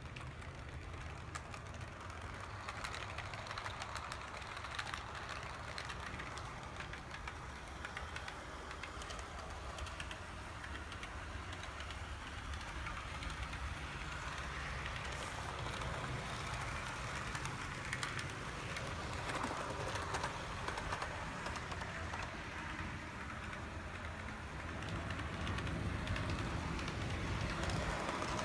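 HO-scale brass model of a JNR EF58 electric locomotive, Tenshodo build with TA gear drive and a Copal motor, running on the track with its passenger cars: a steady whirr of motor and gears over a fine, continuous clicking of wheels on the rails. It grows louder near the end as the train comes close.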